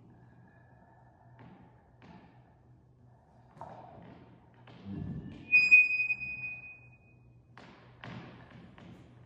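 Sparse experimental music of scattered soft thuds and swishes over a low steady hum, with a heavy thump about five seconds in followed by a bright ringing tone held for about a second and a half.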